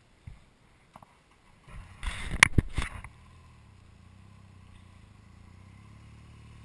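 A loud scraping rustle on the microphone about two seconds in, then a BMW adventure motorcycle's engine pulling steadily up a grassy hill, a low hum that grows a little louder near the end as the bike approaches.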